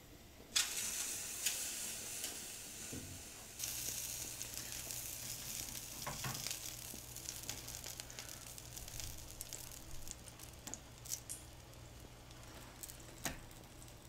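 Pork sausages sizzling on a wire grill rack over a tabletop grill, their fat spitting in a steady crackle of small pops. The sizzle starts suddenly about half a second in, and a few sharp clicks stand out, the clearest near the end.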